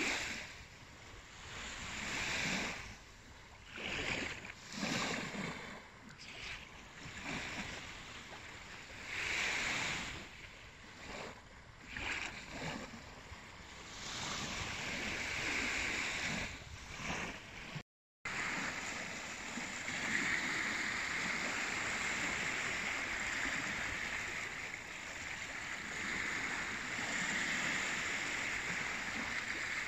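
Small waves lapping on a sandy shore, a soft swash every few seconds. After a cut about 18 seconds in, a steady rush of shallow stream water rippling as it runs into the sea.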